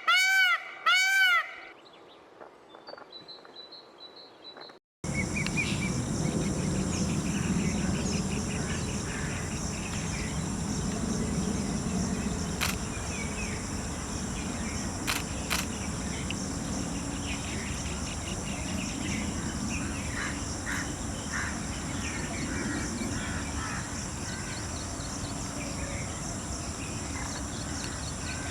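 Indian peafowl (peacock) giving a series of loud, repeated honking calls, each rising and falling in pitch, which stop about a second and a half in. After a few seconds of near silence, steady outdoor background comes in: small birds chirping, a steady high whine and a few sharp clicks.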